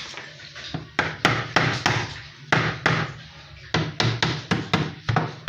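Repeated sharp taps or knocks on a fridge part during repair, in short runs of two to five, about three to four a second.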